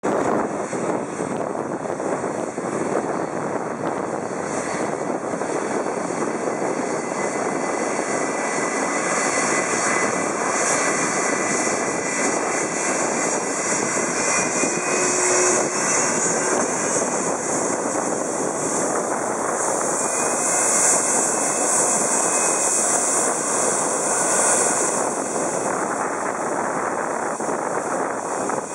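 A twin-engine jet airliner's turbofan engines running at taxi power as it rolls past and lines up for takeoff. It makes a steady jet rush with a faint high whine, swelling a little around twenty seconds in.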